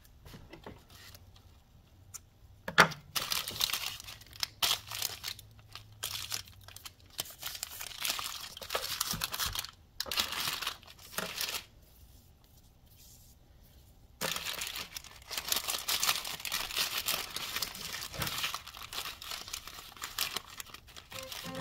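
Paper wrapping being unfolded and crinkled by hand, in irregular rustling bursts. There is a sharp knock about three seconds in and a brief lull a little past the middle.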